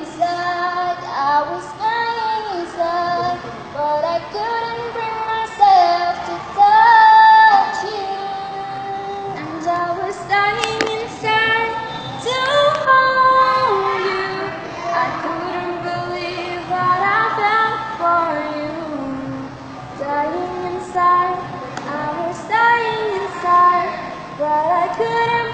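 Two teenage girls singing a slow ballad as a duet, the melody gliding between held notes.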